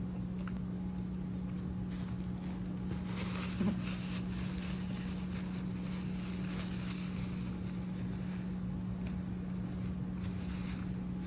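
A steady low machine hum holding one constant pitch over a faint hiss, with a brief small sound about three and a half seconds in.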